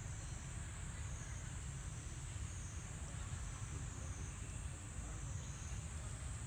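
Outdoor ambience: a steady high-pitched insect drone that slowly wavers up and down in pitch, over a low rumble.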